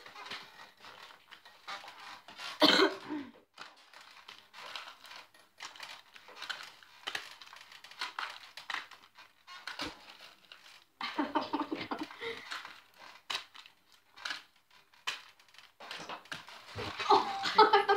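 Layers of gift wrapping and tape crinkling and tearing in hands, with scattered crackles and clicks. There is a short vocal burst about three seconds in, and voices near the end.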